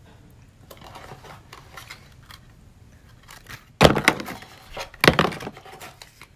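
Handling noise of small objects held close: faint ticks and rustles, then two loud clattering knocks a little over a second apart, just after the middle.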